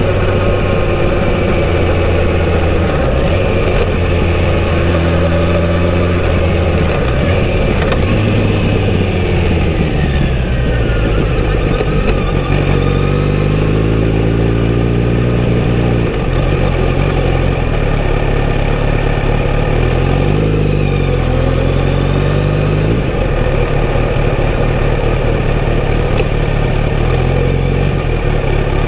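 Kawasaki Z900RS inline-four engine running through its stock exhaust while the bike is ridden at low speed, the engine note rising and dropping a few times with the throttle, most clearly about halfway through.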